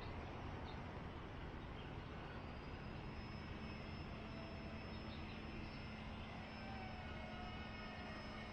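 Faint steady whine of a small RC foam pusher plane's electric motor and propeller in flight, coming in about two and a half seconds in, over steady outdoor background noise.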